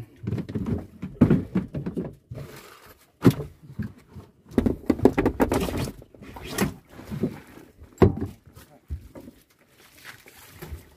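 A run of irregular knocks and thumps, heavy and uneven, the sharpest a little over a second in, just after three seconds and at eight seconds.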